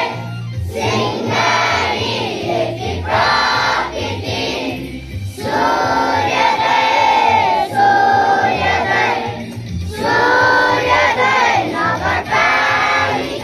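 Large group of schoolchildren singing together in unison at assembly, in phrases with brief pauses between them.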